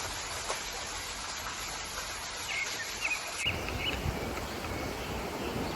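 Forest ambience: insects buzzing high and birds giving short chirps over a steady hiss. About halfway through, the sound changes abruptly to low wind and rustling noise.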